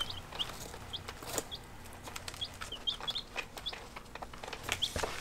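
Baby chicks peeping in a brooder: short, high chirps, several a second, many with a quick upward flick, over scattered small clicks.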